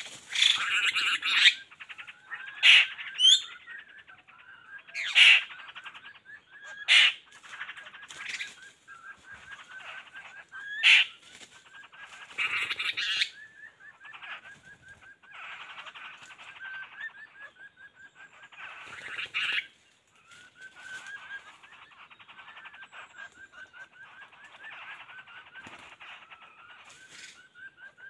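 Birds calling: a continuous fast trilling chatter with about seven loud, sharp call bursts spread through the first two-thirds, typical of laughingthrushes answering a decoy.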